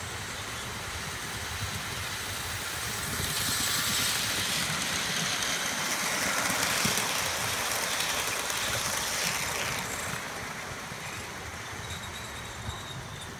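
Model train running past on the track, a blue diesel locomotive with its coaches: the rumble of the motor and the wheels on the rail grows louder from about three seconds in, is loudest in the middle, and fades as the train moves away.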